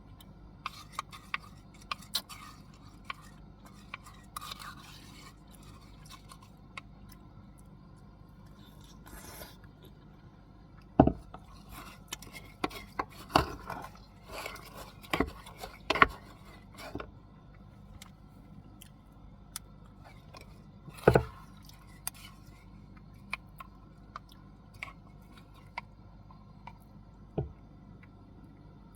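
Things being handled: scattered clicks, taps and short scrapes, with a few louder knocks, the loudest about 11 and 21 seconds in, over a steady low hum.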